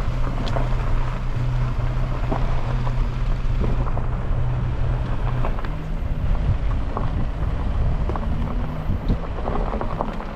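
A car driving on a rough, unpaved road: a steady engine hum and a loud low rumble, with many small knocks and rattles from the road surface. The hum's pitch changes about halfway through.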